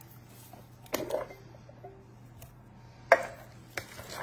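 A wooden spoon knocking against a plastic mixing bowl while stirring a thick, creamy filling: three sharp knocks, one about a second in and two near the end, with a faint steady low hum underneath.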